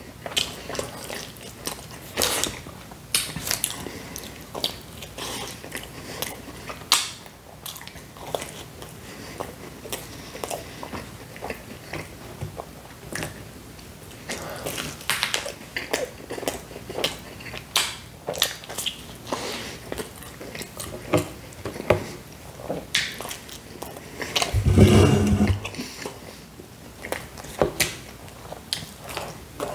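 Close-up eating sounds of a Hawaiian pizza slice dipped in ranch: bites into the crust and wet chewing with frequent small mouth clicks, and a brief low hum near the end.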